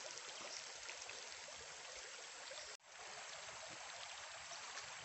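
Steady rush of a nearby stream, with a brief dropout just under three seconds in.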